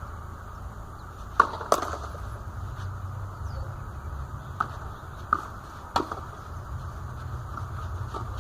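Tennis ball being struck by racquets and bouncing on the court: about six sharp pops spread unevenly, the two loudest close together about one and a half seconds in, over a steady low rumble.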